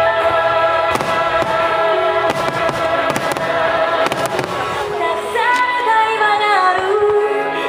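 Fireworks going off in several sharp cracks during the first half, over music with a long-held melody that starts sliding between notes near the end.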